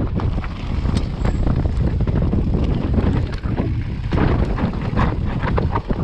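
Wind buffeting the microphone of a camera on a mountain bike, with the bike rattling and clattering as it rides over rocky stone trail; the knocks come thicker about two-thirds of the way through as the descent gets rougher.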